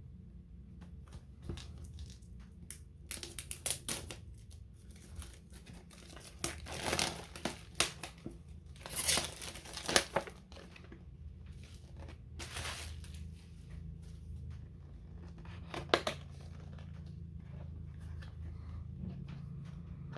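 Board game box packaging being torn open and handled: irregular crinkling and tearing sounds in short bursts, loudest about nine to ten seconds in.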